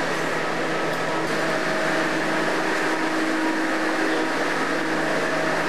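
Steady mechanical hum and hiss of a subway train standing at the platform with its doors open, with a few steady tones running through it.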